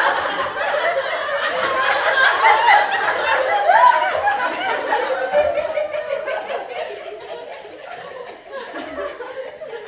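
Several people laughing and chuckling together, dying away gradually.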